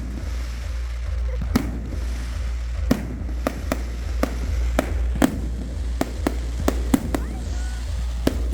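Fireworks going off in a quick, irregular string of about a dozen sharp bangs, over the steady low bass of music playing throughout.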